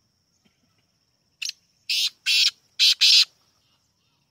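Black francolin calling: one short note, then four loud, harsh grating notes in quick succession, the whole phrase lasting about a second and a half.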